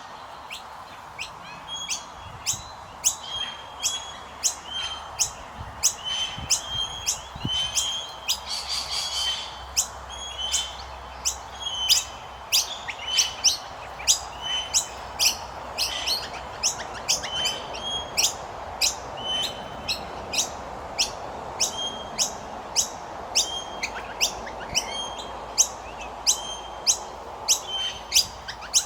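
Common myna chicks chirping: short, sharp, high calls repeated about one to two a second, over a steady background hiss.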